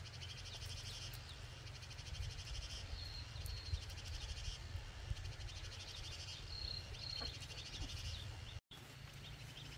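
Insects trilling: a high, rapidly pulsing buzz that comes and goes in stretches of a second or two, with a few short high chirps and a steady low rumble underneath.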